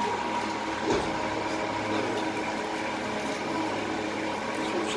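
Boat engine running with a steady hum of several fixed tones, heard from inside the hull, with a single knock about a second in.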